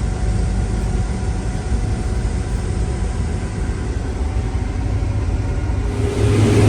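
Farm tractor engine running at a steady idle; about six seconds in it gets louder, with a steady hum rising above the low rumble.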